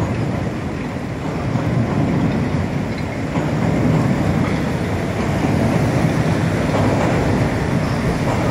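Chicago "L" elevated train rumbling across a steel truss bridge, growing louder about two seconds in and then holding steady.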